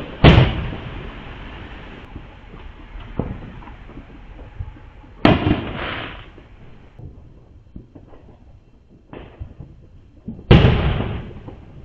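Fireworks going off around the neighborhood: three loud booms, about a second in, halfway through and near the end, each trailing off in a rumbling echo, with a few fainter pops in between.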